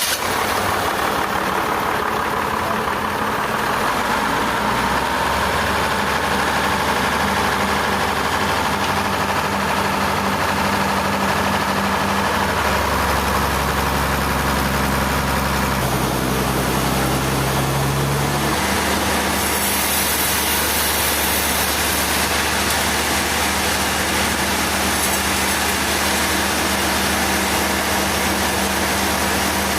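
A heavy engine running steadily; its pitch shifts between about halfway through and a little later, then settles.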